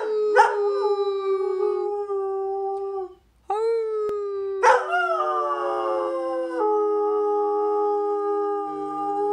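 Greyhound howling, the drawn-out 'roo' greyhounds are known for. One long held howl breaks off about three seconds in. A second long howl follows, starting with a sharp yelp and then held steady, with a lower steady tone sounding beneath it from about halfway.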